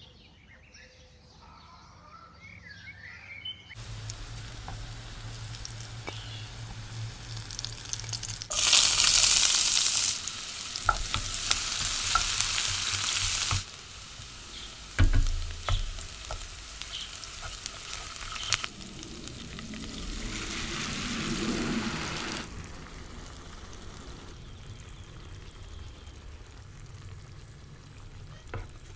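Chopped onion frying in oil in a pan, sizzling steadily while it is stirred, with a louder burst of sizzling about nine seconds in.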